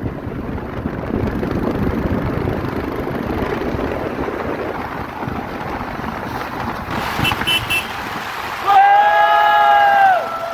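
Steady road and wind rumble on a moving vehicle, with a few short horn beeps about seven seconds in, then a loud vehicle horn sounding for about a second and a half near the end, its pitch dropping as it stops.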